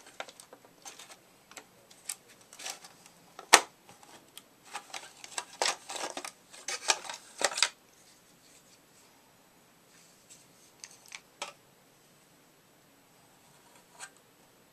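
Hard plastic clicking and rattling as a Swivel Sweeper's clear plastic base housing and its parts are handled during disassembly. There is one sharp click about three and a half seconds in, then a few seconds of quick clattering, then only scattered light clicks.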